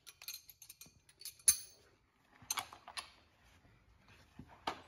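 Scattered metallic clicks and jingles of hand tools and hardware being handled, the sharpest about a second and a half in and a few more near the end.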